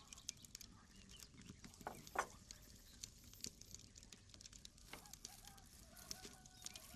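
Near silence with a wood fire crackling faintly in a hearth: scattered small irregular pops and clicks, one a little louder about two seconds in. A faint steady pitched call starts near the end.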